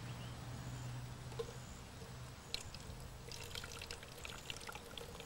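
Thin trickle of water running from the corner of a plastic bag into a glass, faint, with small drips and splashes that become audible about halfway in.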